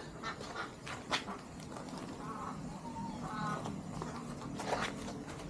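Kittens mewing: three short, high calls come close together in the middle, along with a few sharp taps and scuffs.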